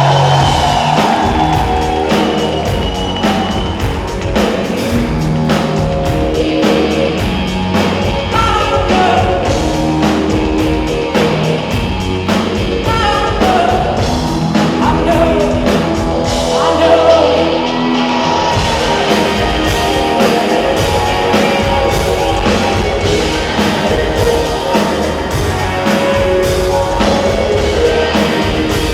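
Live band playing a driving rock and electronic song, with steady drums and bass under a sung lead vocal.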